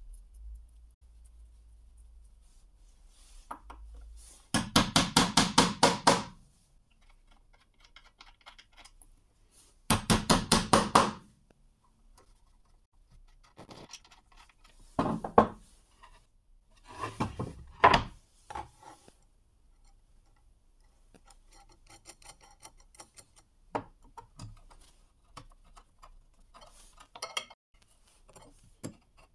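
Steel bolts, nuts and a wrench clicking and clinking against each other and a plywood board. There are two bursts of rapid, even clicking about five and ten seconds in, then scattered single clinks and taps.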